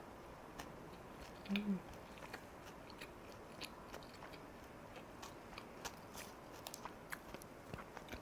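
A person chewing a mouthful of jeon (Korean pan-fried pancake) close to the microphone: soft scattered mouth clicks and smacks, with a short closed-mouth hum about a second and a half in.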